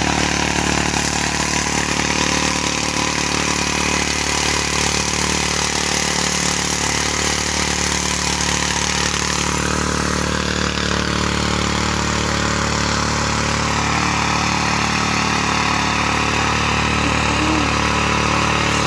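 Mitsubishi motor tiller's small engine running steadily under load, its tines churning through loose garden soil.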